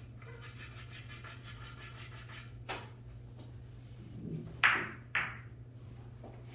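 Blue Master chalk being rubbed on a pool cue tip in quick rasping strokes for about two and a half seconds. A light click follows, then two sharp clacks about half a second apart, the first the loudest.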